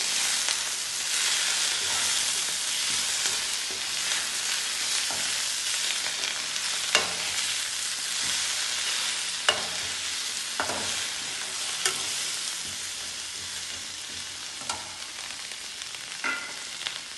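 Minna keerai leaves, shallots, green chillies and garlic sizzling in sesame oil in a kadai. A steel ladle stirs them and clicks sharply against the pan about six times. The sizzle slowly eases as the leaves wilt.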